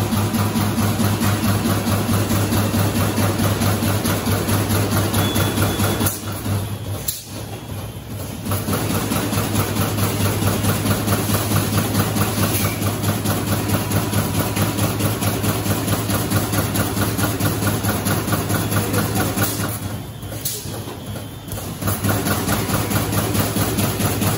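Automatic high-speed plastic T-shirt bag making machine running: a fast, even mechanical clatter over a steady hum, going quieter twice for about two seconds.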